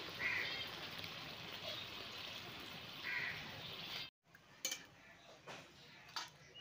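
Watery curry gravy of potatoes and okra simmering in a karahi, a steady bubbling hiss as it comes to the boil. Two short animal calls sound over it, near the start and about three seconds in. The hiss cuts off abruptly about four seconds in, leaving a few faint clicks.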